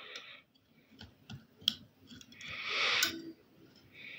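A few faint, sharp clicks of a small plastic battery box and its thin wires being handled, then a soft rushing sound about two and a half seconds in.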